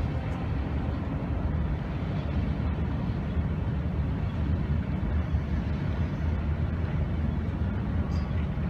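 Wind buffeting the microphone: a steady low rumble and rushing noise with no distinct tones.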